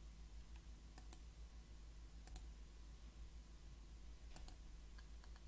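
Faint computer mouse clicks, mostly in quick pairs every second or two, over a low steady hum.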